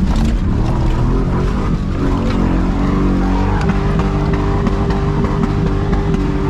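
Chevy pickup truck's engine revving up over the first second, then held under steady throttle, with scattered clattering knocks throughout.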